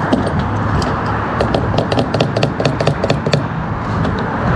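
Quick run of sharp metallic clicks, about eight a second for two seconds, from a gas pump fuel nozzle being worked as fueling finishes, over a steady low hum.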